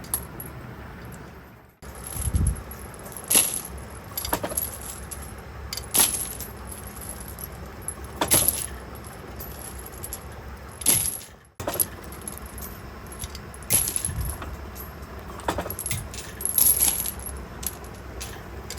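Sharp metal clinks or knocks, about six of them spaced two to three seconds apart, over a low steady hum, with the sound cutting out abruptly twice.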